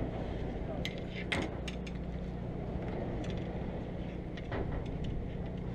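Steady low hum of the fishing boat's machinery, with a few sharp clicks and rustles from hands and tackle as a small fish is taken off the hook.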